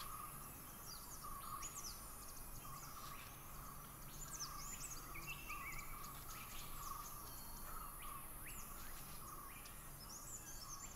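Forest ambience: many small birds chirping over an insect call that pulses about once a second, with a light background hiss.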